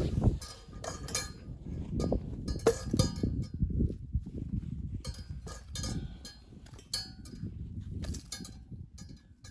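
Irregular knocks and light clinks over low thuds, the sound of hard objects being handled and set down. The loudest knock comes right at the start.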